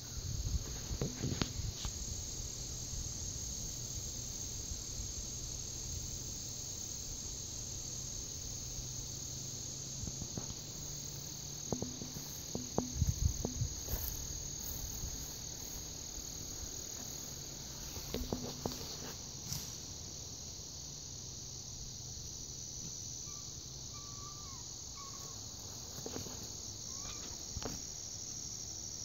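A steady, high-pitched chorus of insects in summer woodland, with occasional bouts of rustling and footfalls in leafy undergrowth.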